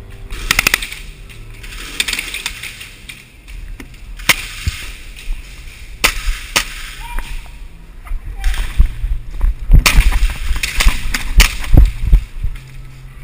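Airsoft guns firing: a quick burst of rapid shots at the start, a few single shots in the middle, and a thicker string of shots near the end.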